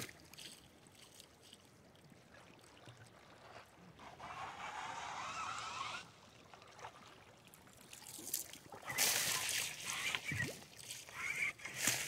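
Shallow river water splashing and sloshing around rubber boots as a white plastic tube is worked into the streambed. Near the middle comes a gurgling rush lasting about two seconds, and louder, irregular splashing follows toward the end.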